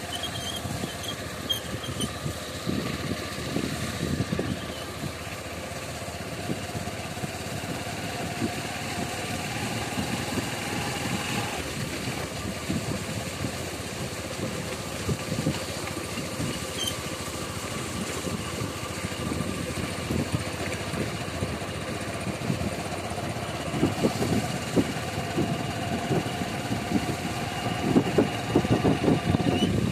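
Motorcycle engine running steadily as the bike is ridden slowly along a rough dirt track, heard from the rider's seat. Uneven low buffeting runs under it and grows heavier near the end.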